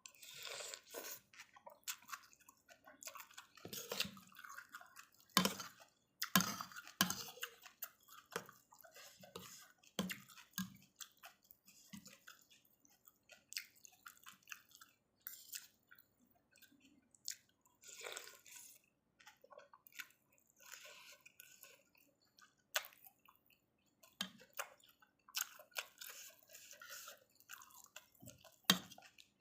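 Close-up eating sounds of someone chewing and slurping thick pork noodle soup, with irregular wet bursts and sharp clicks scattered throughout.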